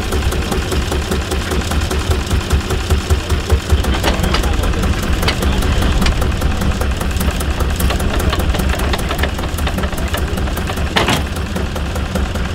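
Vintage tractor diesel engine running steadily at idle with a deep, even thudding. A few sharp clicks stand out about four seconds and eleven seconds in.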